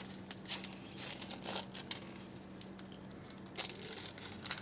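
Irregular crinkling and rustling handling noise with scattered short clicks, over a faint steady low hum.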